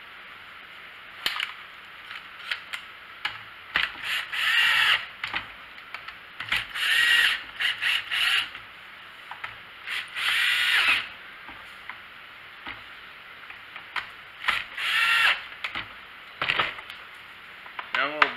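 Cordless drill-driver whirring in a dozen or so short bursts of a second or less. It is driving the chainsaw's housing screws snug one at a time, in a crisscross order.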